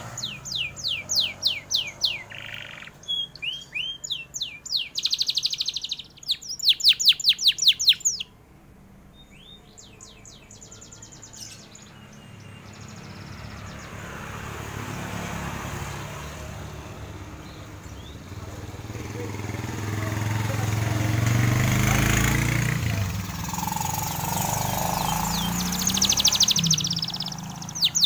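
Domestic canary singing in fast, high trills of rapidly repeated notes, broken into several rolls over the first eight seconds and starting again near the end. In the gap between, a passing vehicle's rumble and hiss swells to a peak and fades.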